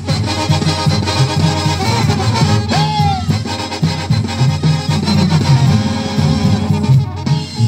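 Zacatecan tamborazo brass band playing live and loud: trumpets and trombones on the melody over a bouncing tuba bass line and drums.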